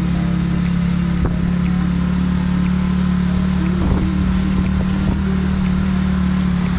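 Single-cylinder 100cc motorcycle engine running at a steady cruising speed, a constant-pitched hum.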